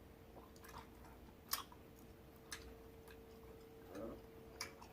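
Faint, close chewing of sticky, chewy candy that clings to the teeth, with a few sharp wet mouth clicks about a second apart. A faint steady hum runs underneath.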